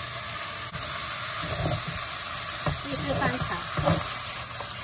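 Vegetables stir-frying in a hot nonstick wok: a steady sizzle. From about a second and a half in, a wooden spatula scrapes and knocks against the pan as it tosses them.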